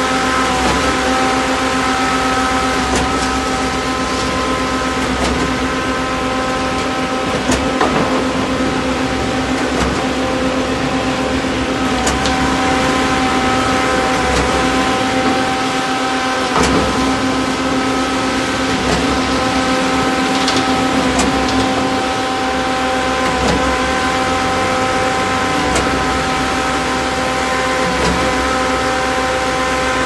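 AIMIX ABJZ40C concrete mixer pump's diesel engine running steadily at a constant speed, with occasional knocks and clanks from the machine.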